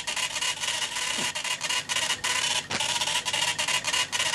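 Sagem TX20 electronic teleprinter sending a message from punched paper tape, reading the tape and printing the message as it goes: a fast, continuous chatter of clicks.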